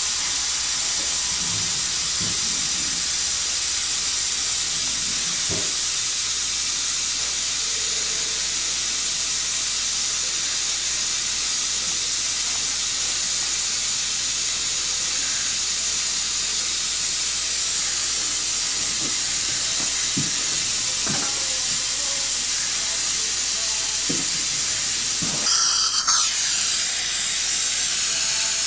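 A steady hiss throughout, with a few faint clicks as a surgical hand ratchet wrench turns a dental implant into the upper jaw.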